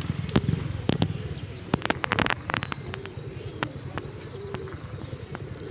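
A flock of birds being fed: scattered sharp clicks and flaps, with a few faint low calls near the end.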